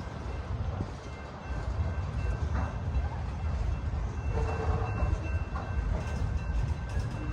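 Freight train rolling past, a steady low rumble of railcars on the track.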